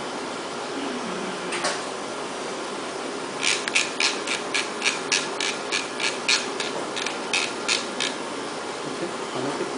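Surgical instruments making a run of sharp taps, about three or four a second for some four seconds, over a steady hiss.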